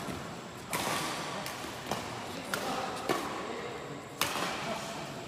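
Badminton rackets striking a shuttlecock during a fast rally: about five sharp hits less than a second to about a second apart, each echoing in the hall.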